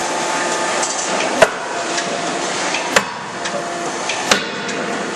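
C92K-63KJ CNC fully hydraulic die forging hammer striking a red-hot gear blank in closed dies: three sharp blows about a second and a half apart, over a steady hum of machinery.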